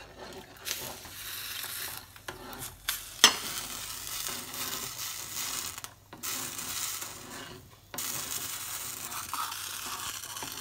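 Roasted semolina being poured into boiling water in a non-stick pan and stirred in with a spoon: a steady bubbling hiss with stirring, and one sharp knock about three seconds in.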